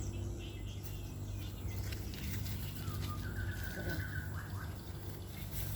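Rural outdoor background with faint bird chirps over a steady low hum, and one long high-pitched call about three seconds in.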